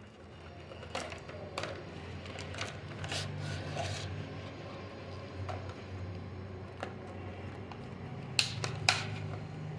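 Cardboard box and plastic packaging tray of a set of wireless earbuds being handled: sliding and rubbing with scattered clicks and taps, and two sharp clicks near the end, the loudest. A low steady hum runs underneath.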